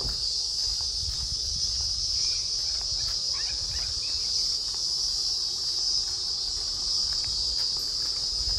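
Steady high-pitched insect chorus droning without a break, over a low rumble, with a few faint chirps about three seconds in.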